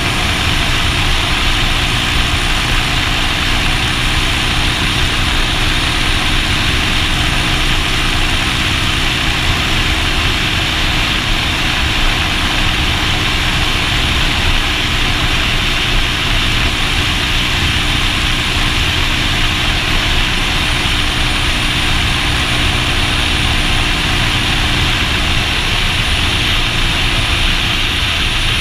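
Motorcycle engine running at a steady cruising speed under heavy wind rush on the microphone.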